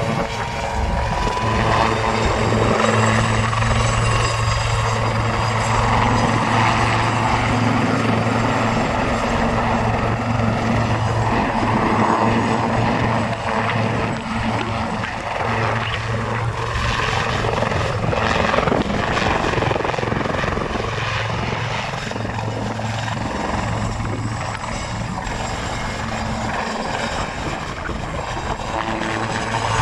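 Westland Sea Lynx naval helicopter flying a display pass, its main rotor and twin turboshaft engines running. A steady low hum carries a thin high turbine whine over it, and it grows a little quieter in the last several seconds.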